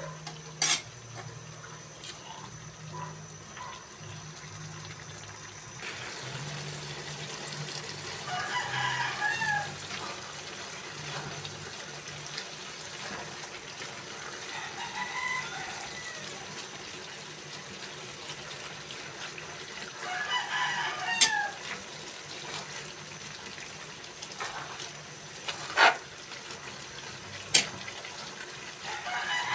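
A rooster crowing four times, roughly every five to nine seconds. A few sharp clacks come between the crows.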